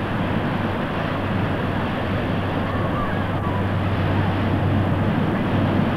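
Steady wind rumble on the microphone mixed with the wash of small waves breaking on the shore.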